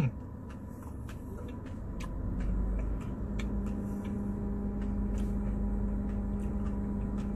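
Steady low mechanical hum and rumble that grows a little about two seconds in, with faint scattered clicks.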